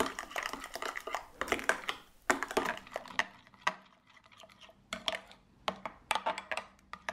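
A spoon stirring a thick, creamy dressing in a glass bowl, clinking and scraping irregularly against the glass, with a brief lull about halfway through.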